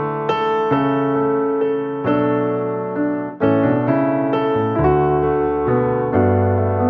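Background piano music, a new note or chord struck every half second or so.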